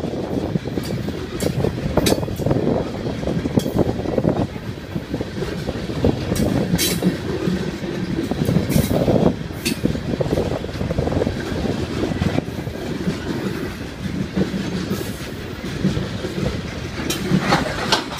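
Coal train cars rolling past close by: a steady rumble of steel wheels on the rails, broken by irregular sharp clacks and clanks.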